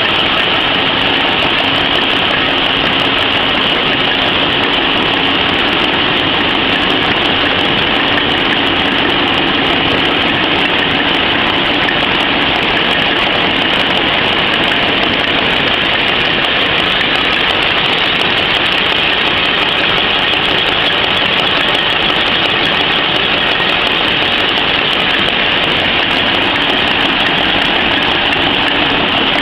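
PCMC 23 cm napkin machine running, feeding a paper web over its rollers: a loud, steady, unchanging industrial din with a strong high hiss-like rattle over a low hum.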